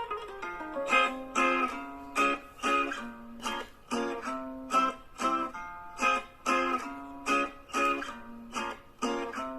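Background music: a plucked guitar playing rhythmic, evenly spaced chords.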